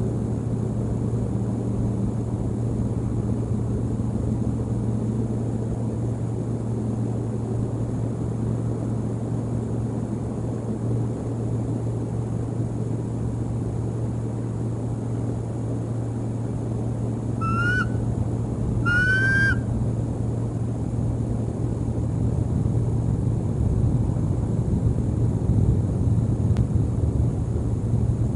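Steady low outdoor rumble with a constant low hum, and two short bird calls about two-thirds of the way in, each rising then falling in pitch, the second louder.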